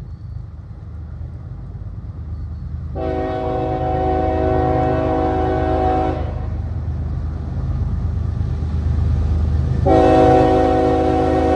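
Diesel freight locomotive's air horn sounding two long blasts, the first about three seconds long and the second starting near the end, over the rumble of the approaching train, which grows steadily louder.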